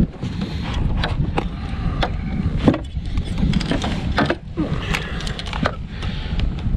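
Wind rumbling on the microphone out on a kayak, with many short clicks and knocks scattered throughout.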